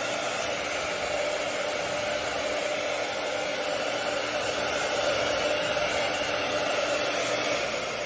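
CONFU 1875 W AC-motor hair dryer running on a steady setting: a constant rush of blown air with an even hum from its motor.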